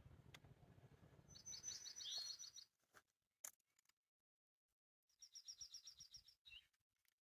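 A songbird singing two short, fast, high trills of repeated notes a few seconds apart, each ending in a brief slurred note, heard faintly.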